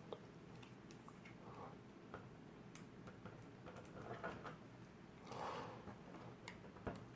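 Faint, scattered clicks and soft rubbing of hard plastic as a small accessory is pushed into an action figure's hand until it fits.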